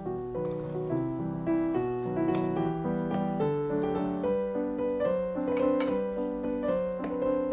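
Background piano music: a gentle melody of sustained notes changing about every half second.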